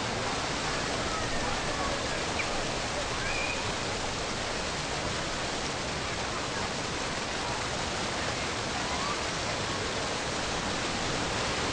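Crowded outdoor swimming pool ambience: a steady rush of water noise with faint distant voices of bathers and an occasional faint shout.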